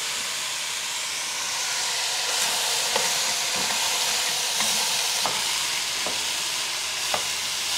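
Diced vegetables (carrots, celery, onion) sizzling as they fry in a stainless steel pot on a gas stove, stirred with a wooden spoon, with a few light knocks of the spoon against the pot.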